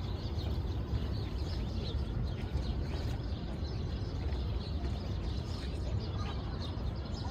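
Small birds chirping in short, scattered calls over a steady low hum of city traffic.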